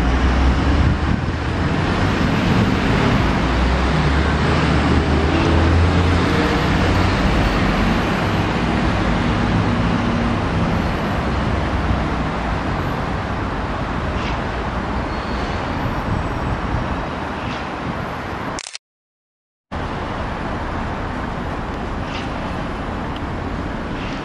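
Steady city traffic noise with a low engine drone that is strongest in the first half and then fades. The sound cuts out completely for about a second near the end.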